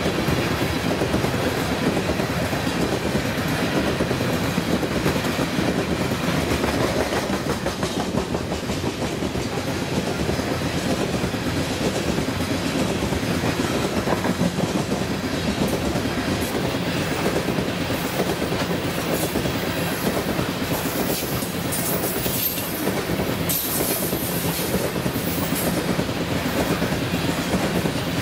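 Freight train cars rolling past close by, steel wheels clicking over the rail joints in a steady rhythm.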